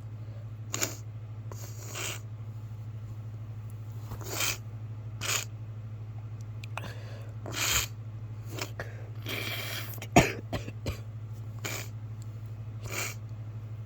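A man with a head cold sniffing and coughing: a dozen short noisy breaths and coughs every second or so, with one sharp, louder burst about ten seconds in, over a steady low hum.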